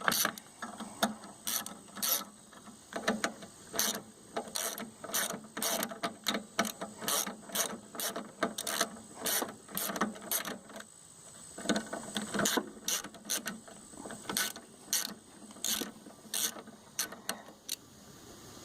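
Hand ratchet wrench clicking as a bolt is loosened on a push lawnmower, in repeated short strokes about two a second with a brief pause near the middle.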